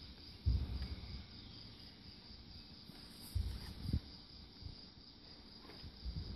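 Crickets chirping steadily in a high, even pulse, with a few dull low thumps from handling around the saddled horse.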